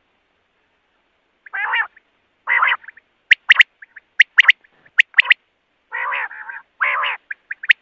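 Common quail calling. After a quiet start come several short, rasping, croaky calls, mixed with sharp clipped notes given in quick twos and threes.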